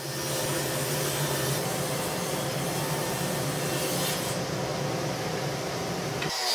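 Table saw running steadily while ripping a walnut board into thin strips; the sound stops abruptly near the end.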